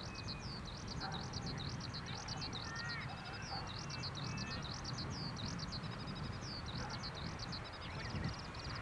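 A songbird singing a continuous stream of rapid, high chirps, with a steady low rumble underneath.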